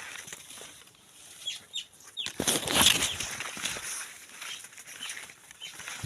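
A slasher blade being swung into a bushy live fence, leaves and branches rustling and snapping, in a rough spell of cuts that is loudest from about two to four seconds in.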